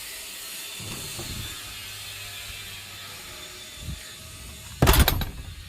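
Workshop background of mechanical clicking and tool noise, with a short loud clatter about five seconds in.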